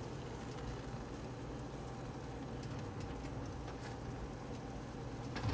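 Quiet frying: egg setting over chips in a nonstick frying pan, with a faint sizzle over a steady low hum and a few light taps of a silicone spatula on the pan.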